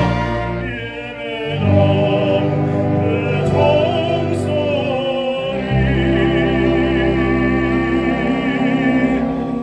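Baritone singing with orchestral accompaniment, holding long notes with a wide vibrato; the sound dips about a second in before the next phrase swells, and a new held chord comes in around six seconds.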